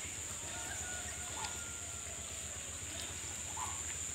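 Steady high-pitched insect drone, with a faint thin whistle-like tone in the first couple of seconds and a few faint short calls from the fowl.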